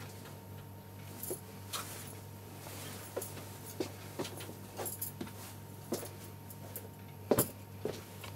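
Large fabric sheets being handled and smoothed out by hand: scattered short rustles and soft taps, the loudest a little before the end, over a steady low hum.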